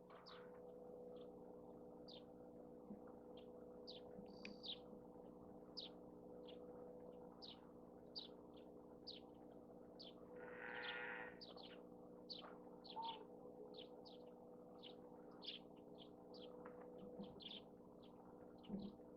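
A small bird chirping over and over, short high down-slurred notes about twice a second, with one longer, lower call about ten seconds in. The chirps are faint, over a steady low hum.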